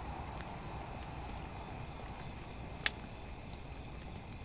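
Crickets chirring steadily at night, with a campfire crackling faintly and giving one sharp pop about three seconds in.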